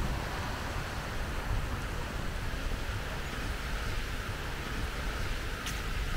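Steady wind noise with a fluttering low rumble and a hiss above it. A single faint tick comes near the end.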